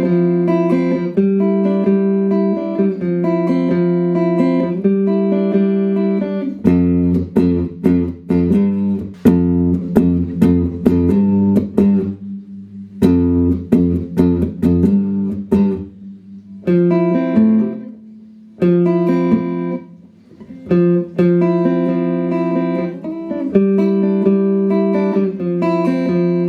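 Clean electric guitar through a Boss GE-7 equalizer pedal into Roland JC-120 amps, playing ringing strummed chords. About a quarter of the way in comes a stretch of quick rhythmic strums with a fuller low end, and later the playing drops out twice briefly before the chords return.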